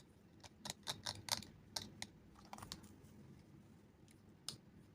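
Faint, irregular light clicks and taps of small tools and parts being handled while soldering a headphone jack, several in the first three seconds and one more near the end.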